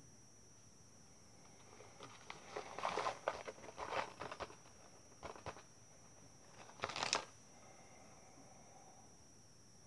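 A snack packet crinkling as it is handled and torn open by hand, in several bursts, the last one near the end of the first seven seconds.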